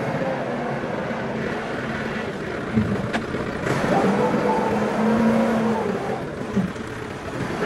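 Massey Ferguson 240 tractor's three-cylinder diesel engine running under load as it drives over and packs down chopped maize silage, its pitch rising and falling. A single sharp click about three seconds in.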